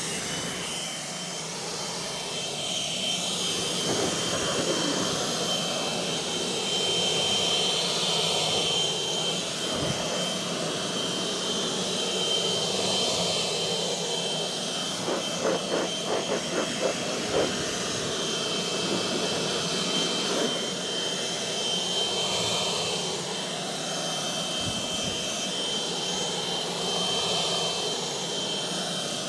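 Handheld electric car-drying blower running steadily, blasting air onto a wet car's bonnet to blow the water off. A rush of air with a thin, steady high whine over it.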